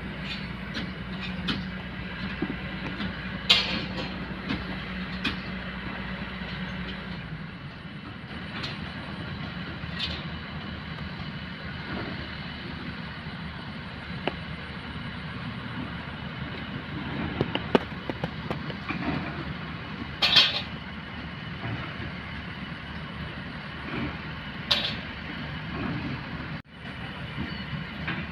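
Kobelco hydraulic excavator at work: its diesel engine runs steadily under metallic clanks and scrapes that come every few seconds, the loudest about twenty seconds in. The engine's low hum drops away about seven seconds in.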